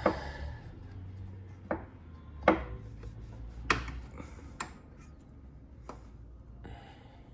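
Hand tools and metal suspension parts being handled during a coilover install: about six separate sharp knocks and clinks over several seconds, the loudest about two and a half seconds in, with some rubbing between them.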